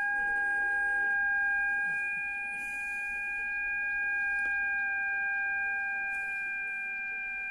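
Kenwood TS-530S transceiver's speaker putting out a steady, pure whistle-like tone: the signal generator's test signal received on the 40 m band around 7 MHz. The tone holds at one pitch, a sign the receiver picks up and tunes the test signal.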